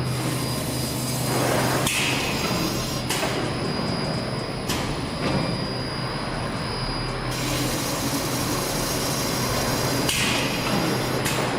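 JN 883S semi-automatic binding-tape cutting machine running with a steady low hum. Its cutter strikes with several sharp clacks at uneven intervals, a second or a few seconds apart.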